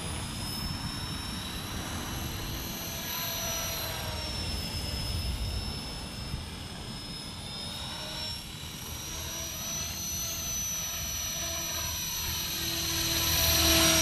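Walkera V450D03 electric RC helicopter in flight: a high whine from its motor and rotor that rises and falls in pitch as it manoeuvres, growing louder near the end.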